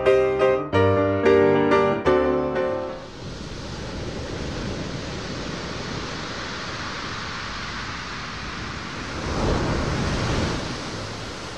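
Soft piano music that breaks off about three seconds in, giving way to a steady rushing noise like surf that swells briefly near the end.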